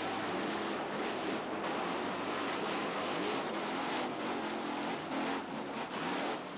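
Monster truck engines running hard and revving, rising and falling in pitch, over a steady wash of noise as the trucks drive over cars.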